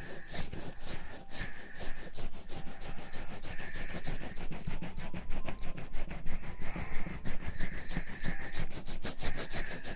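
Close rubbing and scratching on the microphone's ear in quick, continuous strokes, several a second: an ASMR ear treatment.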